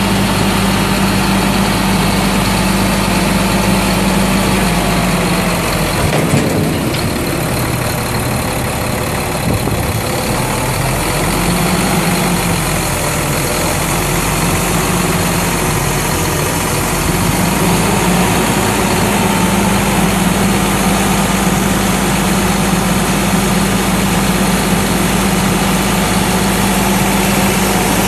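Refuse truck's Caterpillar C7 inline-six diesel running with the side-loader hydraulics working the lift arm, a steady hum whose note dips and wavers for several seconds in the middle. A single clunk about six seconds in.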